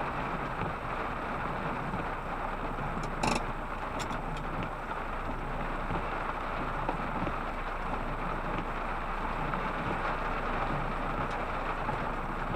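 Steady rain falling, with one sharp knock about three seconds in.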